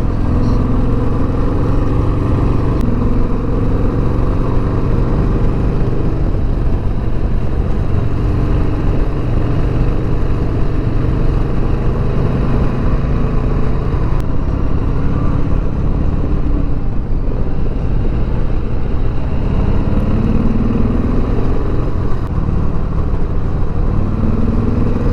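A 2020 Harley-Davidson Sport Glide's V-twin engine running under way at a steady loud level. Its pitch rises twice near the end as the bike accelerates.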